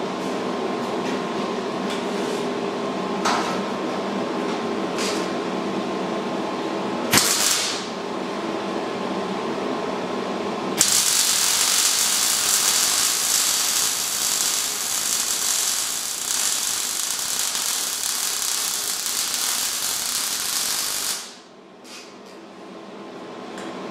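MIG welder: a steady hum with a few clicks and a brief hiss, then about ten seconds of continuous arc welding, a loud even frying crackle as a bead is laid joining a steel bracket to a steel axle casing, cut off sharply near the end when the trigger is released.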